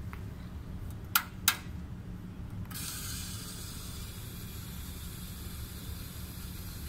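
Coffee Queen batch coffee brewer: two sharp clicks about a second in, then a steady hiss that starts abruptly a few seconds in, over a low hum, as the brewer begins spraying hot water over the coffee grounds.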